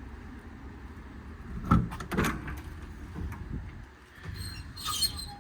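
Metal service-body compartment door being unlatched and swung open: two sharp clunks about two seconds in, then a short metallic rattle near the end, over a low steady rumble.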